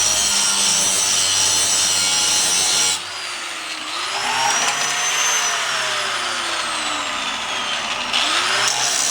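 Power tool running, most likely an angle grinder working metal. About three seconds in the sound drops and changes, then its whine climbs and slowly sags as it runs on.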